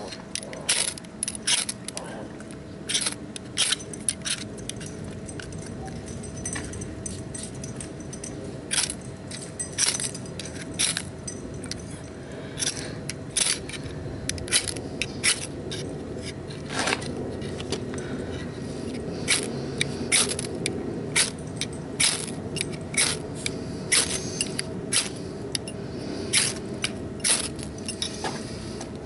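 An irregular series of sharp clicks and short scrapes, about one or two a second, over a faint steady hum.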